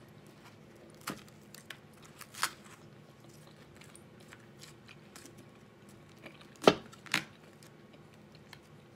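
A metal fork scraping and tapping in a crinkly aluminium foil pie tin while eating: a few sharp clicks and rustles, the loudest two close together about two-thirds of the way through, over a faint steady hum.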